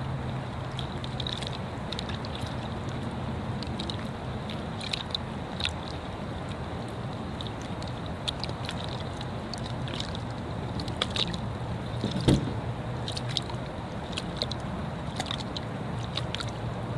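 An engine running steadily under water sloshing, with scattered sharp clicks and one loud knock about twelve seconds in.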